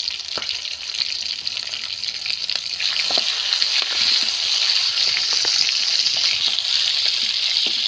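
Chicken leg pieces sizzling steadily as they deep-fry in hot oil in a wok, with scattered clicks and scrapes of a metal ladle turning them. The sizzle grows louder about three seconds in.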